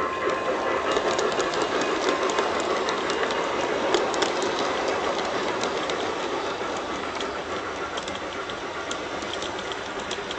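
G-scale model passenger cars rolling along plastic-tied garden-railway track: a steady rumble of metal wheels with irregular clicks at the rail joints, growing a little fainter toward the end as the cars pass.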